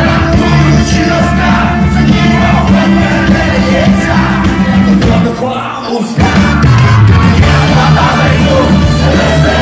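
A live rock band with trumpet and tuba plays loudly under a male lead vocal that is half sung, half shouted. About five seconds in, the bass and low end drop out for a short break, then the full band comes back in.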